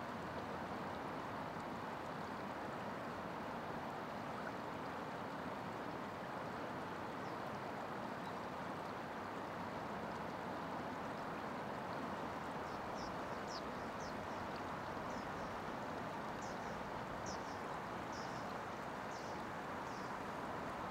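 Steady rush of flowing river water. About halfway through, a series of short high chirps starts, roughly two a second.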